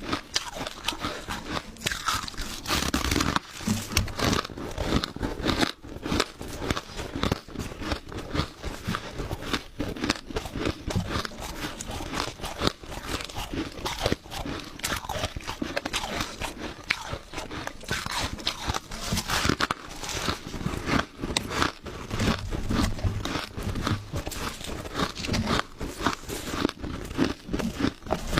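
Close-miked crushed ice being bitten and chewed, a rapid run of sharp crunches and crackles.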